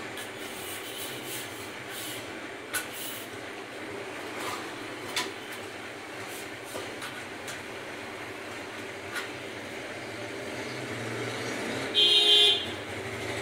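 Aluminium window-frame profiles clicking and knocking lightly as they are handled and fitted together, over steady background noise. About twelve seconds in, a loud buzzing tone lasts about half a second.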